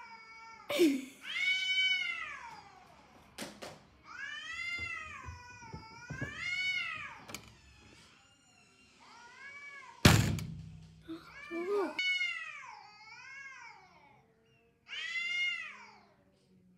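Cats yowling in a standoff: a run of long, drawn-out wails that rise and fall in pitch, one after another with short gaps. A sharp knock about ten seconds in is the loudest sound, with a few fainter clicks before it.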